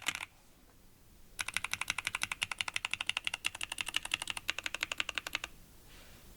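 Typing on a Parallel Limited Portal 65% o-ring-mount keyboard with lubed Zealios v2 tactile switches in an FR4 plate and GMK keycaps. A brief flurry of keystrokes comes at the start, then after a pause a fast, even run of keystrokes at about ten a second lasts some four seconds and stops.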